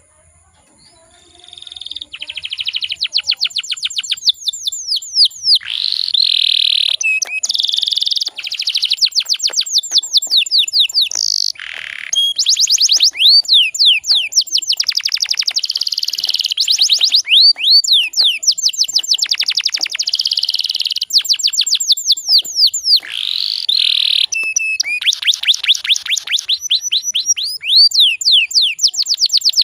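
Domestic canary singing fast rolling trills: rapid runs of repeated high sweeping notes in phrases with short breaks between them. The song starts about two seconds in.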